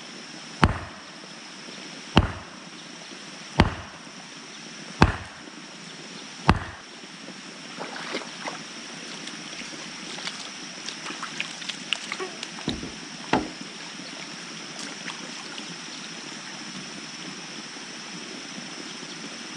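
Wooden mallet pounding a stake into the mud, five hard blows about a second and a half apart. Then splashing and sloshing as someone wades through shallow water, with two duller knocks, over a steady sound of running water.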